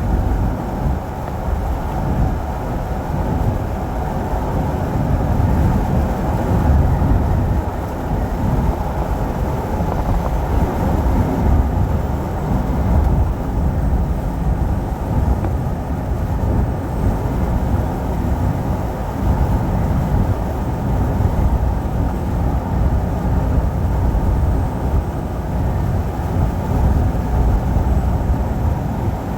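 Steady low rumble of a truck driving along the road, engine and tyre noise with no break.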